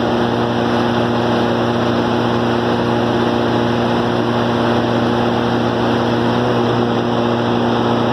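Cummins 6CT inline-six diesel engine running at a steady, unchanging speed.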